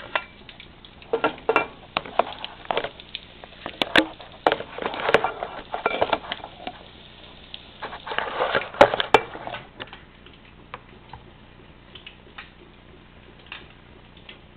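Cookware clatter: a frying pan and metal utensils knocking, clinking and scraping irregularly for about ten seconds, then quieter.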